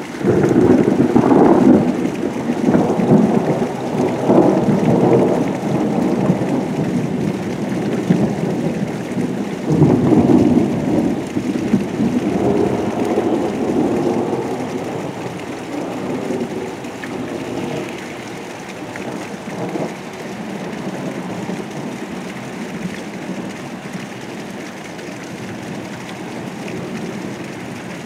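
Thunder over steady rain: a loud rolling peal breaks out suddenly, swells again about ten seconds in, then rumbles away, leaving the rain.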